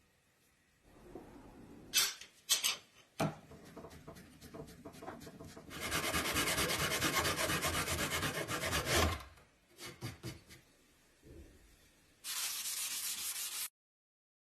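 Wood being sanded, a steady rasping scrub for about three seconds and again briefly near the end, with a few sharp knocks before the first stretch.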